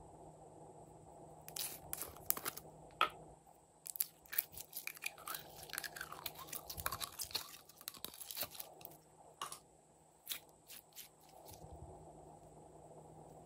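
Thin plastic container of glittery slime crackling and clicking as it is squeezed, with wet squishing and popping as the slime is pushed out of it. The crackles come in irregular clusters, busiest in the middle.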